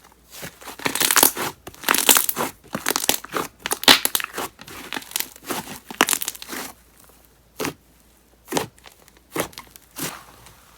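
Thick wood clay slime being squished and pressed by hand: dense crackling with heavy bubble pops, thinning out to a few single pops about a second apart in the last few seconds.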